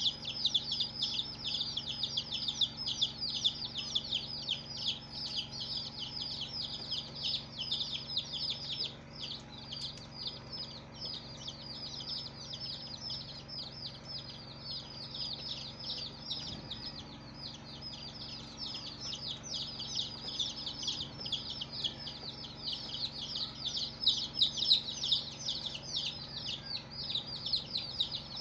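A crowd of baby chicks peeping continuously: many rapid, high, falling cheeps overlapping, thinning a little in the middle and filling out again near the end.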